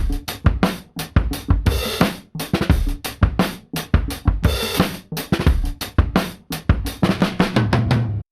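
Music: a drum kit playing a steady beat of kick and snare hits, with a cymbal crash about every three seconds, stopping suddenly near the end.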